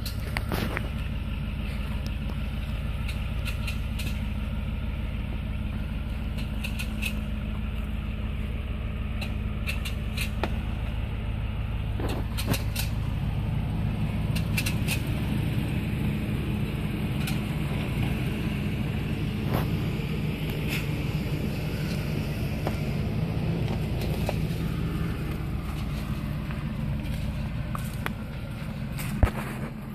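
2006 Lincoln Navigator 4x4 running with a steady low drone, over which sharp clicks come at irregular intervals. The clicking is suspected to come from the rear end and comes with no driveability problems.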